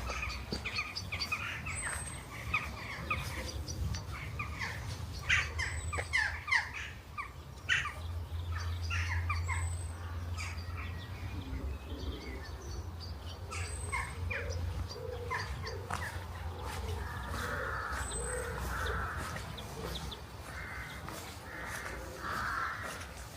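Outdoor birdsong: many small birds chirping and tweeting, with a thin high note repeated about every four seconds, and crows cawing hoarsely in the second half, over a steady low rumble.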